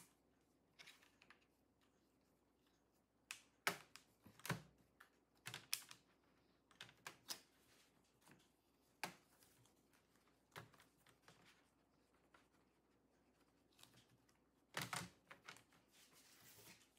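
Faint, scattered sharp clicks and taps of a laptop's plastic bottom-cover clips being pried loose with a thin plastic pry tool and the cover being worked free, with a short flurry of clicks near the end.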